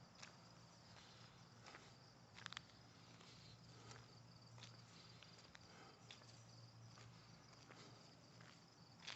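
Near silence with faint, steady insect chirring, a low steady hum and a few scattered soft clicks.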